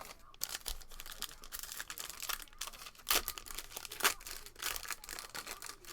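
Trading cards and pack wrapper being handled: irregular dry scrapes and crinkles as cards slide over each other, the sharpest strokes about three and four seconds in.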